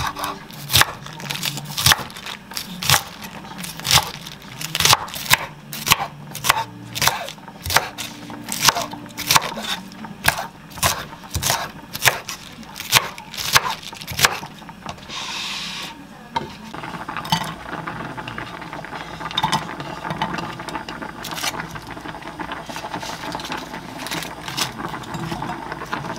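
Chef's knife chopping tomato and napa cabbage on a wooden cutting board: sharp knocks of the blade on the board about twice a second, then, after a brief scraping sound about halfway, quicker, softer crisp cuts.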